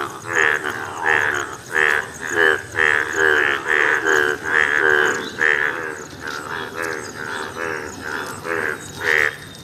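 A chorus of Indian bullfrogs, bright yellow breeding males, croaking loudly in overlapping calls at about two a second, thinning out after about six seconds: a monsoon breeding chorus.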